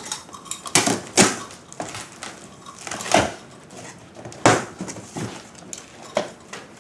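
A large cardboard shipping box being cut open along its packing tape with a box cutter, then its flaps pulled apart: several short scraping and rustling strokes of cardboard and tape.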